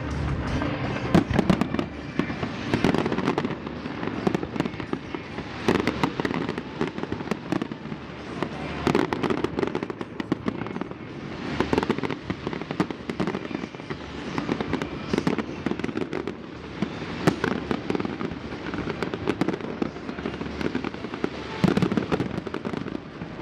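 Fireworks display: a rapid, continuous barrage of bangs and crackling, with clusters of bigger booms every couple of seconds; the loudest come about a second in and near the end.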